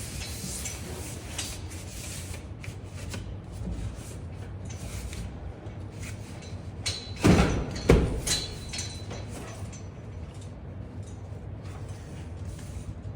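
Drywall sheet being handled, with scraping and small knocks, and two heavy thumps about half a second apart a little past halfway as the board knocks against the framing.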